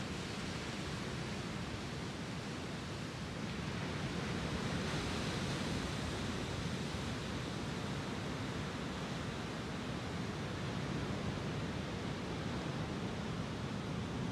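Lake Superior surf breaking and washing up onto a sandy beach: a steady hiss of waves that swells as a wave breaks about four seconds in.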